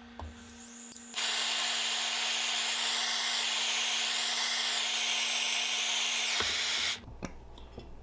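Handheld gas blowtorch burning with a steady, loud hiss that starts abruptly about a second in and cuts off suddenly near the end.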